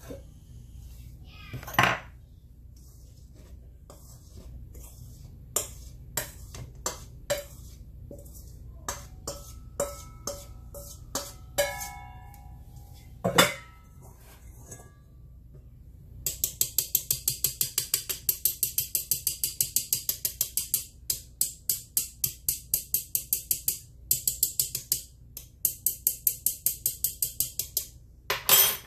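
Sieving flour: a metal mesh sieve knocked and clinking against stainless-steel bowls, with two louder knocks, then, from about halfway on, long runs of rapid even taps, about five a second, as the sieve is shaken and tapped to sift the flour through.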